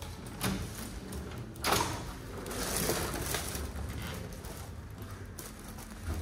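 Hotel room door with an electronic keycard lock being opened: the lever handle and latch click, with a louder clack about a second and a half in, then a brief swish as the door swings open.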